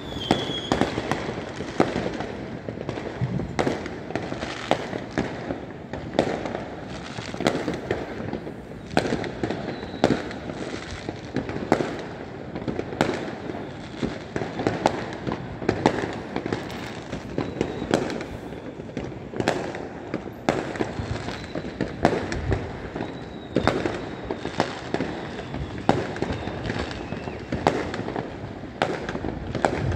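Fireworks going off across the city: an unbroken, irregular run of bangs and pops, several a second, over a steady rumble of more distant bursts.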